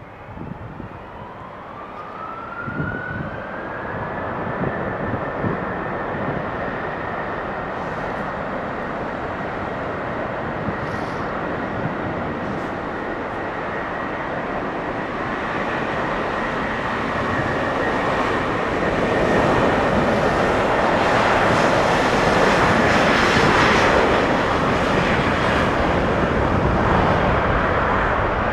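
Jet airliner engines running: a whine rises in pitch over the first few seconds, then holds steady while the engine noise grows steadily louder, loudest in the last third.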